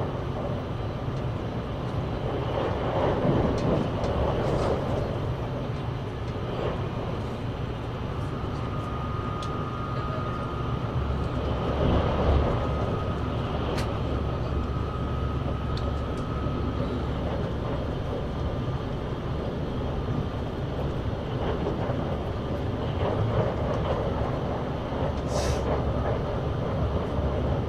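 Passenger train running: a steady low rumble of the railcar that swells and eases every several seconds, with a faint thin whine for a few seconds in the middle and occasional light clicks.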